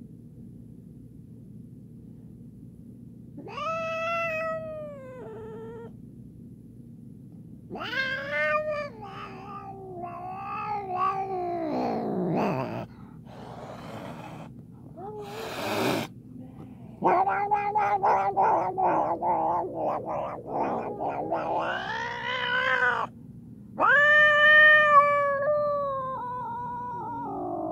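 Domestic cat yowling in distress after defecating while grooming its genital area: about four long, drawn-out, wavering yowls, one breaking into a rapid stuttering cry. The cat's discomfort was worrying enough that it was taken to the vet.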